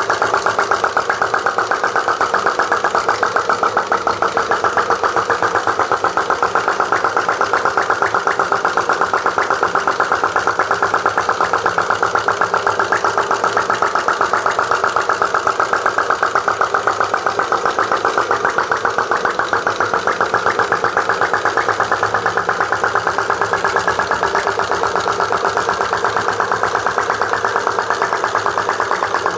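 Model two-cylinder V flame-licker (vacuum) engine running steadily, with a rapid, even beat.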